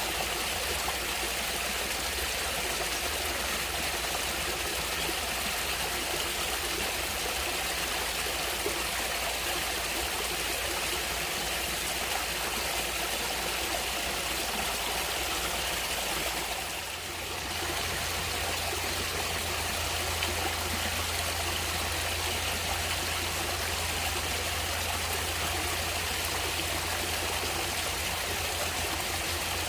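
Water running steadily in a natural stream, with a brief dip in level a little over halfway through.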